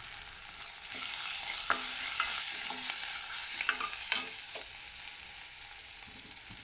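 Garlic and red chilli paste frying in hot oil with browned onions in a kadai, sizzling as a steel ladle stirs it. The sizzle swells about a second in and eases off toward the end. The ladle clicks and knocks against the pan several times.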